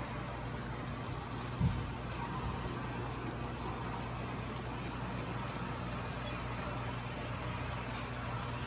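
HO scale model freight train rolling past, a steady rattle of wheels on track over a low hum, with one brief thump about one and a half seconds in.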